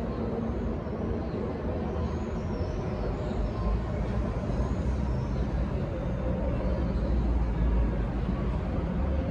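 Steady low rumble of outdoor background noise, with a few faint high chirps about two to three seconds in.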